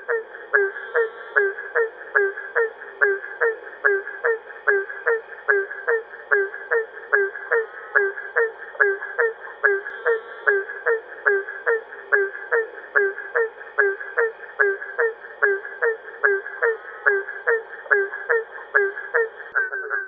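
Barking treefrogs (Hyla gratiosa) calling: a resonant tonk repeated in a steady rhythm, about two a second. A faint steady high tone runs behind the calls and stops near the end.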